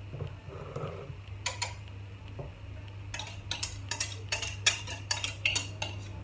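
Wire whisk clinking and scraping against the rim of a bowl as banana batter is scraped out of it, the quick clinks coming thick from about halfway in, over a steady low hum.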